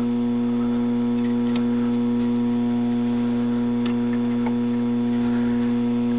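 Tomy Omnibot robot's speaker giving a loud, steady electrical buzz, the fault symptom of the non-working robot, with a few faint clicks over it.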